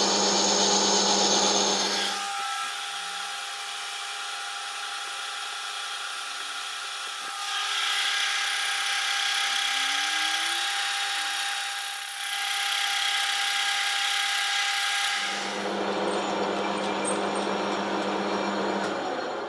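Metal lathe running under power feed while a boring bar cuts inside a bronze bush: a steady machine whine with cutting noise. The deeper hum drops away about two seconds in and comes back near the end, and the sound grows brighter and louder for a stretch in the middle.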